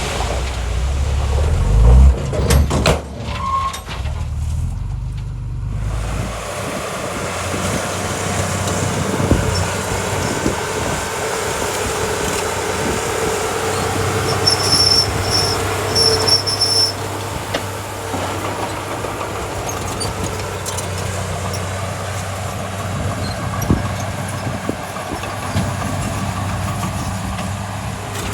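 Diesel engine of a small crawler bulldozer running steadily under work, with scattered metallic clanks and a few brief high-pitched squeals about halfway through. Wind buffets the microphone with a low rumble for the first few seconds.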